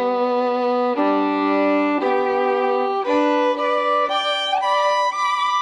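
Background music: a single melodic line of long held notes, changing about once a second, moving to higher, quicker notes near the end.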